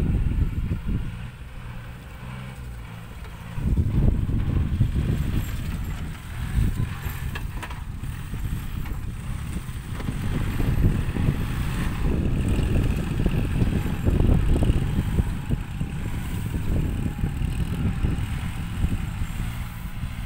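Small tractor's engine running as it works the soil at a distance, under an uneven low rumble that eases for a couple of seconds near the start.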